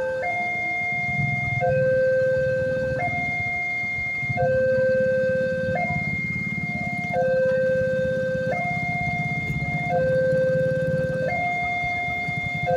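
Indonesian railway level-crossing alarm sounding its electronic two-tone warning, stepping between a higher and a lower tone about every one and a half seconds, the signal that a train is approaching and the crossing is closing.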